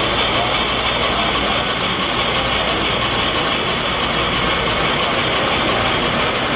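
Steady din of a busy exhibition hall with model trains running on a layout.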